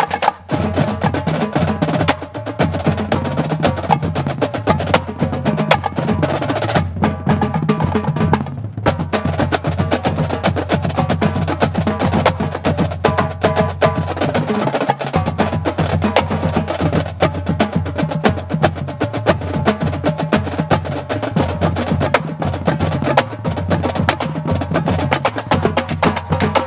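Marching drumline playing a rudimental cadence: snare drums, tenor drums and bass drums together, with fast, dense stick strokes throughout and pitched bass drums underneath.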